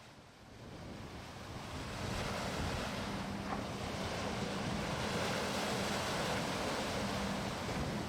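Ocean surf washing in, with wind, fading in over the first two seconds and then steady, over a faint steady low hum.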